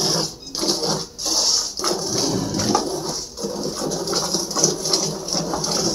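Jets of milk squirting into a steel milking bucket as a cow is milked by hand, a hissing stream that pulses with each squeeze of the teat.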